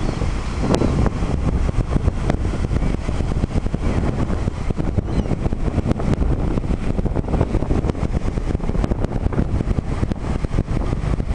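Wind buffeting the microphone: a loud, steady, low rumble with irregular crackling flutter.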